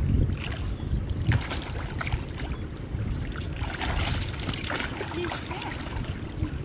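Shallow water splashing and sloshing as hands grope and stir through it, in irregular small splashes that grow busier about two-thirds of the way through, over a steady low rumble.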